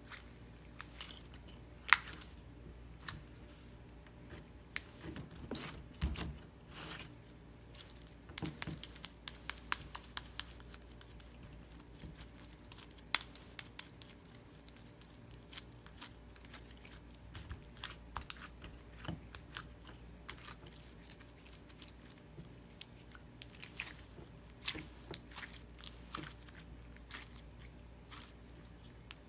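Hands kneading, squeezing and stretching clear red slime with small foam beads: irregular sticky clicks, pops and squelches, some sharper and louder than others.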